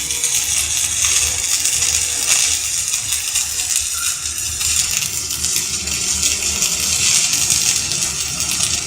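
Stick (SMAW) arc welding with a 3.2 mm electrode on a Daesung welding machine: a steady, dense crackling hiss of the burning arc that cuts off suddenly at the end as the arc is broken.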